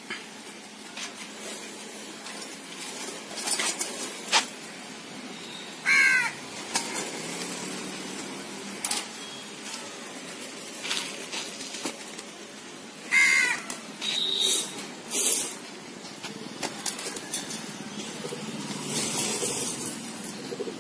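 A crow cawing twice, once about six seconds in and again about seven seconds later, each call short and harsh. Between the calls come scattered light knocks and rattles, as a wire-mesh pigeon cage is handled.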